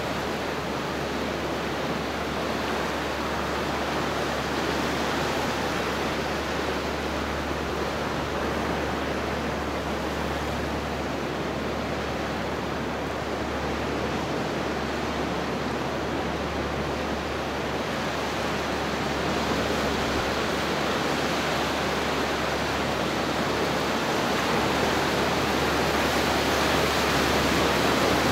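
Pacific surf washing over rocks and surging into a narrow rocky channel: a steady rush of water that swells slowly, loudest near the end as a wave comes through.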